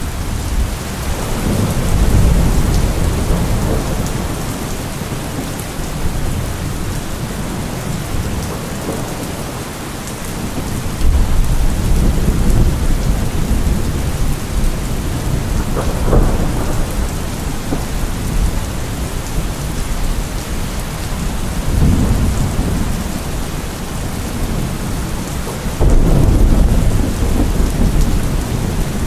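Steady rain with low rolling thunder swelling up several times.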